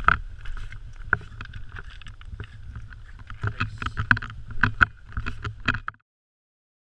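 Footsteps crunching and clattering on a beach of loose rounded stones, with a low wind rumble on the microphone; the sound cuts off abruptly about six seconds in.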